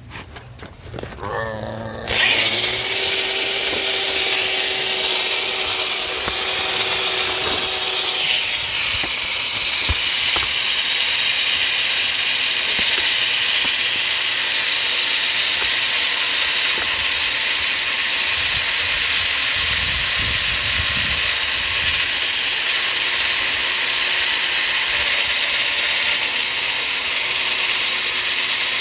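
Cordless drill spinning up about two seconds in, then its bit grinding steadily into a broken steel stud.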